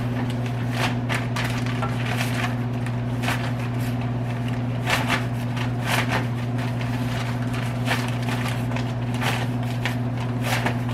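Steady low electrical hum under scattered light knocks and rustles of hands working raw chicken thighs through flour, at irregular intervals.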